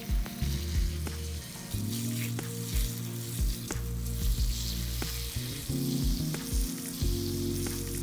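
Fine jet of water hissing from a hand-pump garden pressure sprayer's brass nozzle and spattering onto a clump of roots and soil.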